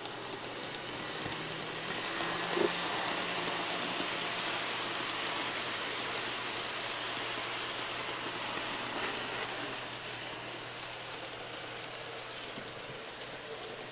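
Kato N scale Santa Fe Super Chief passenger train, pulled by two locomotives, running along the track: a steady, rain-like hiss of small wheels and motors. It builds as the train comes close, holds, then eases off after about ten seconds as it moves away.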